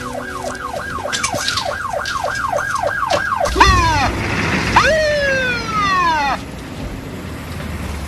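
Ambulance siren in a fast yelp, sweeping up and down about three or four times a second. About three and a half seconds in it turns louder, with two long falling wails over the vehicle's engine, and it cuts off after about six seconds.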